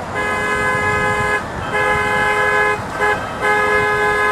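Miniature ridable train locomotive sounding its multi-tone horn in four blasts: two long, a short one, then a final long one, over the low rumble of the train running.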